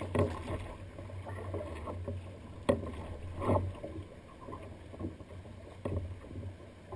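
Choppy sea water slapping and splashing against a sea kayak's hull, in irregular bursts with a few sharper slaps, the loudest a little under three seconds in.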